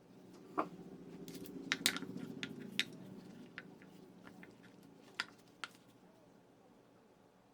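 Small hard objects being handled on a work surface: a quick run of sharp clicks and taps, two more a couple of seconds later, over a low hum that swells and fades in the first few seconds.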